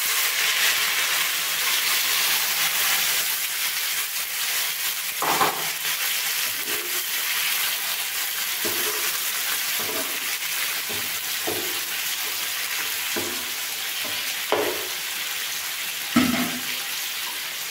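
Freshly added chopped tomatoes sizzling in hot mustard oil in a non-stick frying pan, a steady hiss that slowly eases. A metal spoon stirs and scrapes against the pan every second or two.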